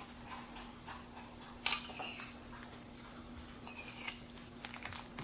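Faint, scattered clicks and taps of a serving utensil against a bowl and baking dish, with one sharper click about a second and a half in, over a steady low hum.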